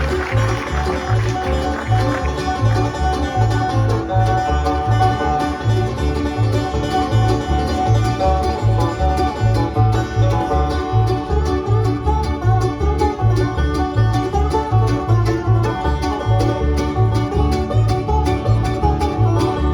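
Bluegrass band playing an instrumental: banjo picking over guitar, with a steady alternating two-beat bass line underneath.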